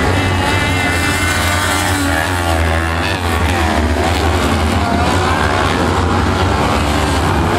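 A pack of kart cross buggies racing on a dirt track, several engines revving up and down over one another.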